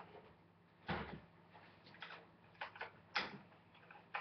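Faint plastic knocks and clicks from a Nerf Longstrike CS-6 blaster being handled while its stock is fitted. A handful of separate hits are spread over a few seconds, the strongest about a second in.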